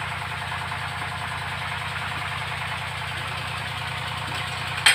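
Diesel engine of a well-drilling rig running steadily, with a sharp click just before the end.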